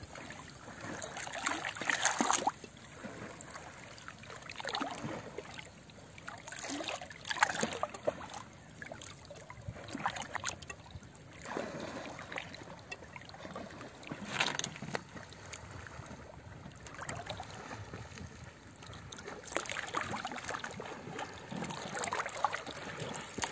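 Sea water lapping and sloshing against the hull of a small boat, coming in irregular surges every second or two.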